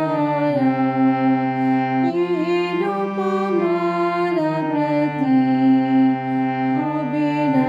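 Harmonium playing a slow devotional melody. The melody notes change every second or so over sustained lower notes.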